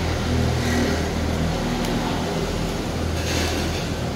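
Steady low rumble of motor vehicles on the street.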